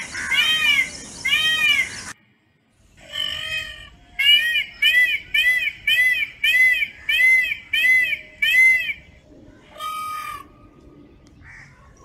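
Indian peafowl (peacock) giving loud, nasal, arched calls in quick series. A few come, then after a short break a run of about eight calls, under two a second, and a single lower call near the end.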